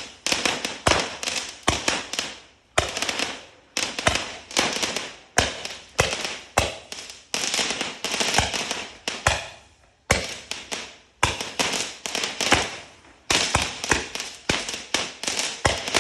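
Fireworks firing shot after shot: sharp bangs about one or two a second, each trailed by a fading crackle, with a few brief pauses between runs.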